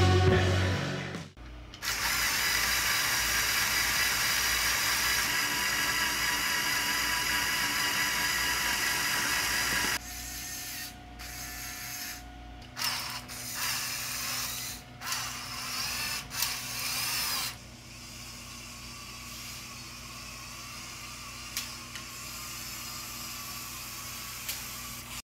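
LEGO Technic car's Power Functions electric motors and plastic gearbox whirring: a loud steady whir for about eight seconds, then quieter and uneven with several short swells, then a low steady hum near the end.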